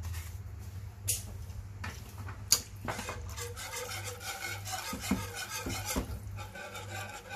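Wire whisk stirring a thickening béchamel sauce in a metal pot, a steady scraping with several sharp clinks of the wires against the pan, the loudest about two and a half seconds in. A low steady hum runs underneath.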